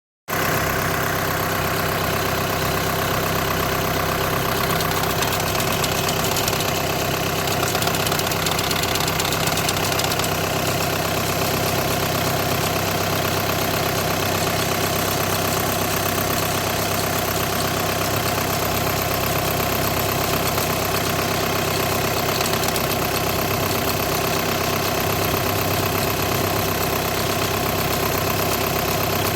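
Car engine idling steadily, with the strange noise of a VW's DSG gearbox that the title puts down to clutch plate vibration or a clutch plate bearing. The sound drops out for a moment at the very start.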